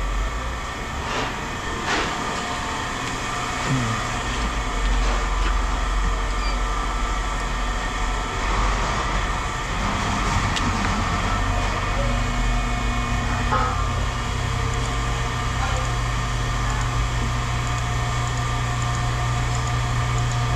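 A large engine running steadily, with a few short knocks and clanks over it; the engine's low hum grows stronger about halfway through.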